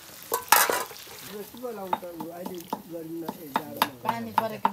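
Metal ladle stirring simmering chicken curry in a metal pan: a loud scrape about half a second in, then light repeated knocks of the ladle against the pan. Voices talk in the background.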